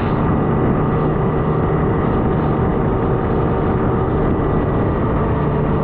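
Boat engine running steadily under way, a constant drone with a steady hum over the noise of water and wind.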